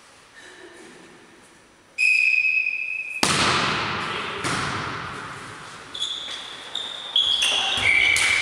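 Referee's whistle blown once for about a second, then the volleyball struck hard for the serve, the slap echoing around the sports hall. Further hits of the ball follow in the rally, with short high squeaks.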